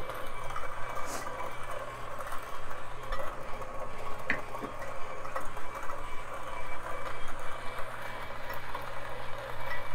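Electric coffee grinder running steadily, grinding an 18 g dose of beans fine for espresso.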